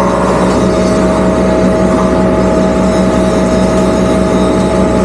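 Zoomlion ZE370E excavator's diesel engine and hydraulics running steadily as the boom moves a mulcher head, with a steady whine over the engine note.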